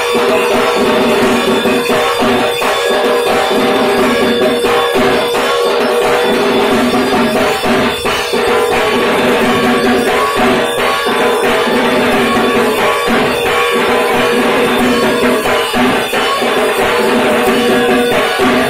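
Dhak, the Bengali barrel drum, beaten in a fast, dense, unbroken arati rhythm, with a steady held tone sounding underneath.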